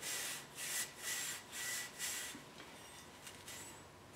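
Hand scuffing of a metal part from a Kawasaki Mule's centrifugal clutch with an abrasive, cleaning off rust: about five back-and-forth rubbing strokes, roughly two a second, which stop about two and a half seconds in.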